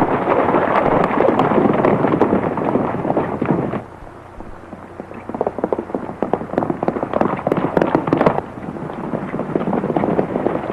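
Hoofbeats of a band of horses galloping, a dense rapid crackling clatter on an old film soundtrack. It drops away abruptly about four seconds in, then builds up again as riders approach.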